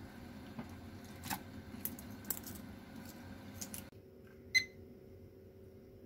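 A few light clicks and taps of objects handled on a desk, then a single short electronic beep about four and a half seconds in from a small cube-shaped multifunction digital clock held in the hand as its backlight comes on.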